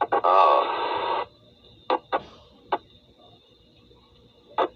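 Helicopter headset intercom: a garbled radio transmission for about a second, then a few short squelch pops as microphones key on and off over a faint hum.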